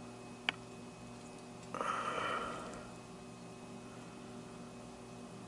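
A steady low hum from the boiler-room equipment. A single sharp click comes about half a second in, and a brief rustling hiss follows around two seconds in.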